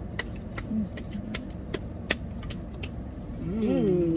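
Small sharp clicks and crackles of eating and handling food packaging inside a car, over a steady low rumble from the car. Near the end, a short hummed vocal sound rising and falling in pitch.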